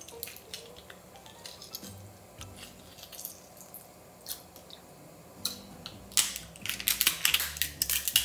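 Lobster tail shells crackling and clicking as they are pulled apart by hand, then a quick run of loud cracks and snips near the end as kitchen scissors cut through a shell. Soft background music underneath.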